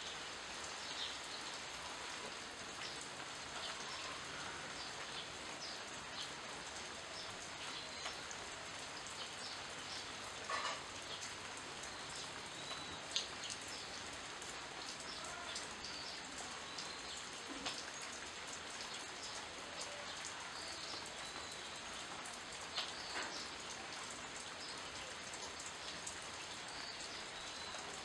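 Steady rain falling on leaves, with single drops ticking close by and an occasional sharper drop hit. A few short bird chirps come through the rain now and then.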